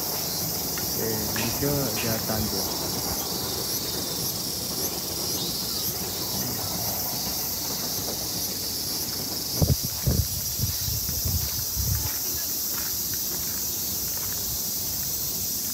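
A steady, high-pitched insect chorus throughout. A few low thumps come about two-thirds of the way through, and there are faint voices in the first couple of seconds.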